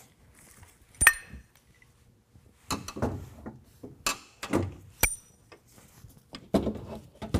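Metal bull-bar mounting bracket being handled and fed through the truck's front bumper opening. Sharp metallic clinks with a brief ring, the loudest about a second in and two more around four and five seconds in, with scraping and rustling between them.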